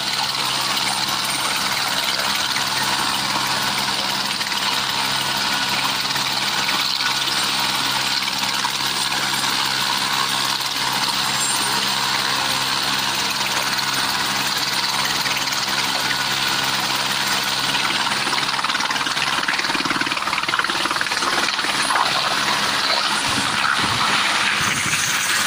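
Helicopter turbine engine and main rotor running steadily with a high whine and hiss while the aircraft sits on the pad; near the end it lifts off and the sound grows slightly louder.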